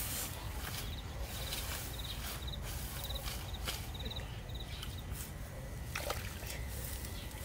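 Grass and leafy weeds rustling and crackling as they are pulled and handled by hand at a muddy ditch edge, over a steady low rumble, with short high chirps repeating now and then.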